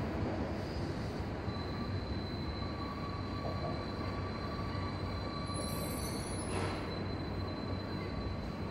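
Electric local train running away along the line: a steady low rumble with thin, high, steady wheel squeal tones that come in about a second in and hold.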